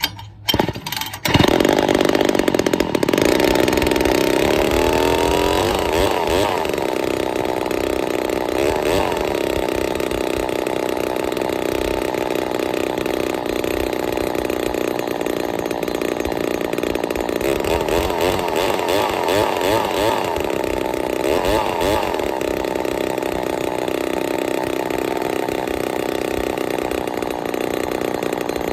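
Ported Poulan 245A two-stroke chainsaw pull-started for its first run after porting, with the choke on and the trigger locked. It catches about a second in and keeps running at high speed, its revs rising and falling several times.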